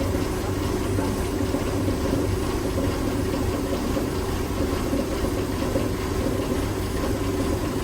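Steady drone of running steam boiler plant machinery in a rice mill: a constant low hum and a mid-pitched hum under an even rush of noise, unchanging throughout.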